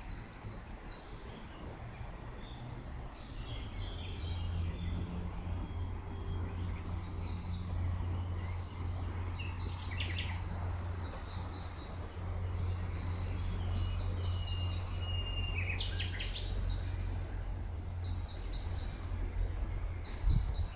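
Songbirds chirping and calling, short high calls scattered throughout. A steady low hum comes in about four seconds in and carries on under the birds.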